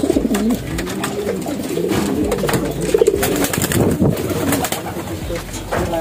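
Homing pigeons cooing: several low coos that rise and fall in pitch, overlapping one another.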